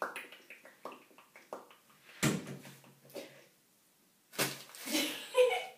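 Light handling noises in a small tiled bathroom: scattered small clicks and rustles, with one dull thump about two seconds in and a short rustle near the end.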